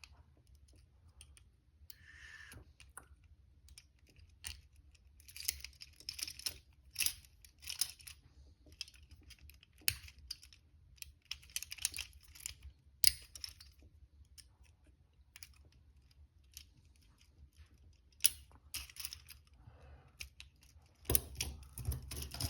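A lock pick working inside the keyway of a double-locked Viper Tech handcuff, making scattered small metallic clicks and scrapes, now and then in quick clusters, with a few sharper clicks.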